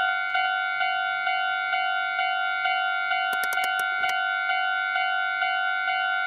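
Japanese railroad crossing warning bell ringing its steady electronic "kan-kan" tone, pulsing a little over twice a second. A quick run of sharp clicks sounds over it about three seconds in.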